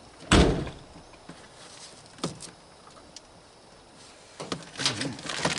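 Knocks and clatter of a dryer's sheet-metal cabinet while a wiring harness is cut and pulled from inside it: one loud bang about half a second in, a sharp click a couple of seconds later, then a run of knocks and scrapes near the end.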